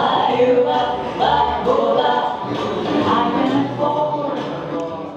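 Unaccompanied choir singing, several voices holding and bending notes together, growing quieter toward the end.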